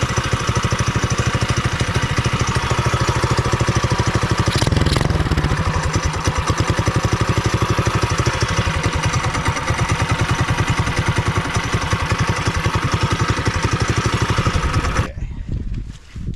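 Small gasoline engine idling through a new header and stainless steel muffler, with a quick, even exhaust beat and one short blip about four and a half seconds in. Near the end the engine cuts out suddenly and dies.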